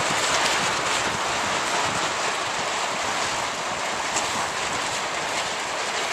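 Steady rushing noise of wind and water on open water.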